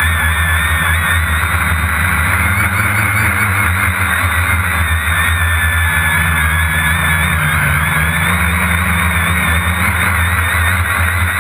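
A small multirotor drone's electric motors and propellers whining steadily, heard from the camera on board, with the pitch wavering slightly as it holds position. A low rumble runs underneath.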